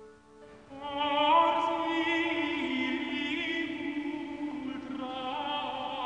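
Classical vocal music: sung voices holding long notes with vibrato, coming in under a second in, the note dropping lower partway through.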